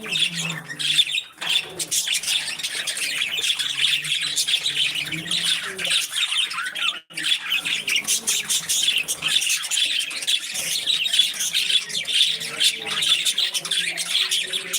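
Several budgerigars chattering and chirping non-stop in fast, overlapping warbles, breaking off briefly about halfway through.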